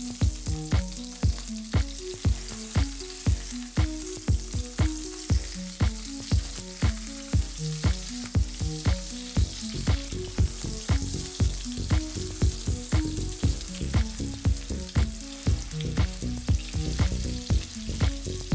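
Ground-beef Salisbury steak patties frying in oil in a skillet: a steady sizzle. Background music with a steady beat plays over it and is the loudest sound.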